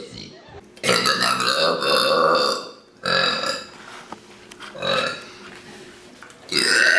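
A person burping loudly into the microphone: a long drawn-out belch, a shorter one, a brief one, then another long belch starting near the end.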